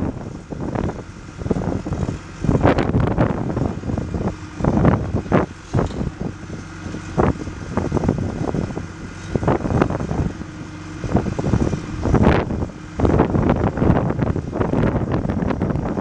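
John Deere 310SG backhoe loader's diesel engine running steadily, with irregular gusts of wind buffeting the microphone.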